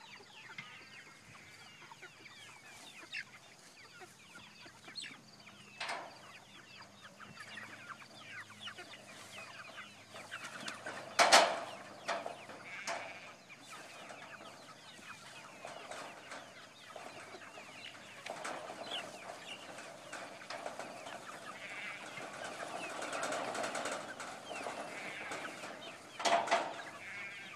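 A flock of jumbo broiler chickens clucking and peeping, broken by a few sharp knocks, the loudest partway through and another near the end.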